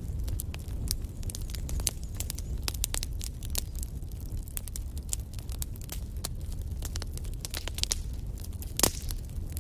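Wood fire crackling, with frequent irregular sharp pops over a steady low rumble of the flames. One louder pop comes near the end.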